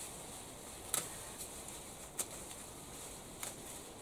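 Hand snips cutting through lemon balm stems: three sharp snips about a second and a quarter apart, over a faint steady outdoor hiss.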